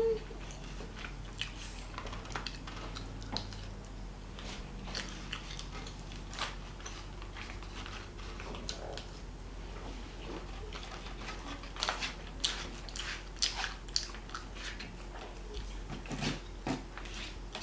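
Close-up chewing and biting of burger and fries: scattered wet mouth smacks and soft crunches as the food is eaten, busiest in the last few seconds.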